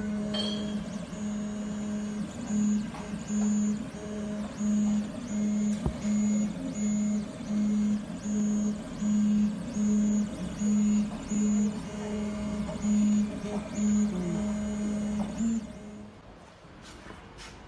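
Stepper motors of a Creativity Elf CoreXY 3D printer whining as the print head moves back and forth mid-print. The steady tone comes in short, even pulses about twice a second and stops near the end.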